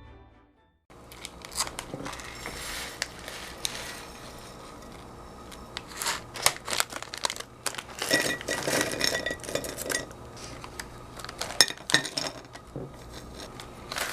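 Plastic packaging and kit pieces being handled: crinkling and rustling with scattered light clicks and knocks, busiest about halfway through.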